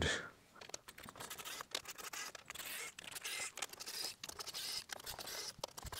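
Faint, irregular small clicks and light scrapes of screws being worked loose by hand from a Compaq Presario 5522's sheet-metal chassis.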